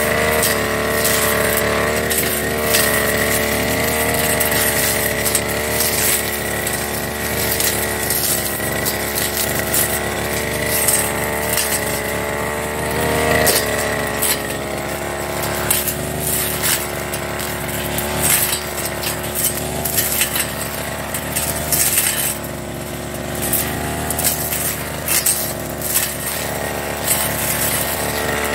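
Firman backpack brush cutter's engine running steadily under load as its cutting head sweeps through grass and ferns, with frequent sharp clicks and ticks as it strikes stalks.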